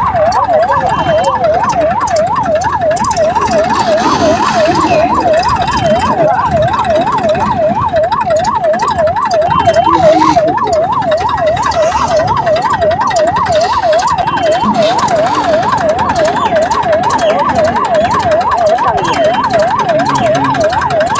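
Electronic yelp-style siren, its pitch sweeping rapidly up and down about three times a second without a break, over a steady background of noise.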